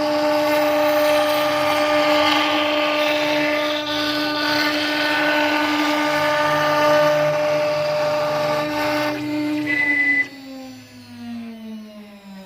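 STYLECNC STG1224 CNC router's spindle whining steadily at a high pitch, with the hiss of the bit cutting. About ten seconds in the cutting noise stops and the spindle winds down, its pitch falling.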